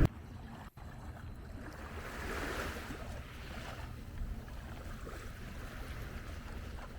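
Faint, steady outdoor background noise with no distinct event, cutting out for an instant under a second in.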